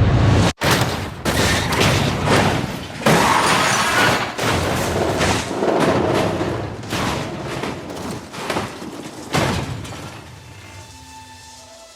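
Stock-car racing crash sound effect: a long, loud run of heavy impacts and crashes as cars collide. The biggest hits come about three seconds in and again near nine seconds, before it dies away.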